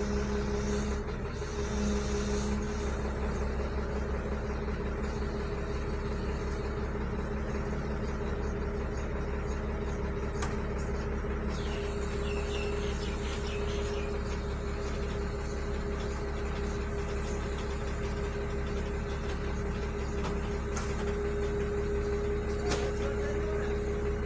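Heavy vehicle's diesel engine running steadily, with a constant drone and a few faint ticks.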